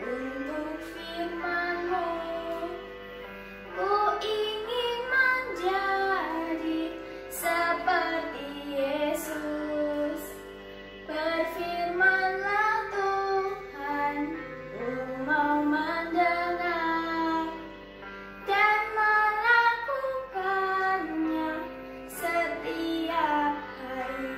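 A girl singing a children's worship song over a backing track of held chords.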